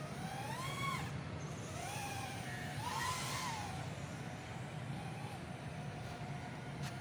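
3-inch FPV micro racer quadcopter's brushless motors and propellers whining in flight. The pitch rises and falls with the throttle, with several quick climbs. A low steady hum runs underneath.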